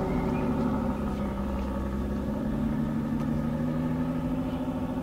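Aston Martin Vanquish Zagato concept's V12 engine running steadily at low revs as the car rolls slowly away.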